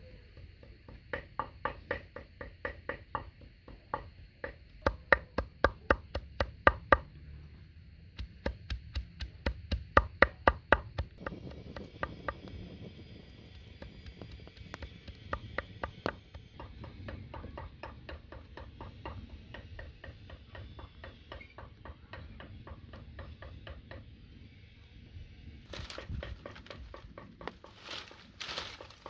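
Runs of sharp, evenly spaced knocks, about three or four a second, for roughly the first twelve seconds. Then a small wood-twig fire under a kettle crackles faintly. Near the end dry brushwood twigs rustle and crackle as a hand pulls them from a pile.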